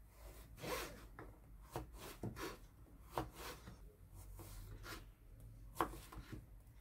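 Kitchen knife cutting a courgette into small cubes on a wooden cutting board: a string of irregular knocks as the blade meets the board.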